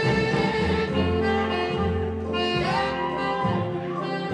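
Jazz music with saxophone and brass carrying the melody in held and sliding notes over a steady bass line.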